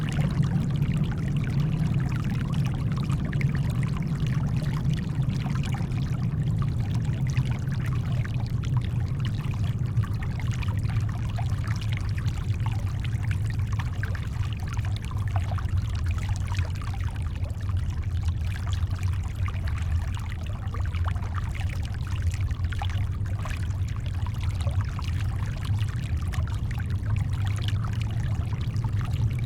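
Shoreline water lapping and splashing over a steady, deep brown-noise rumble. It is an even, unbroken wash with no distinct waves or events.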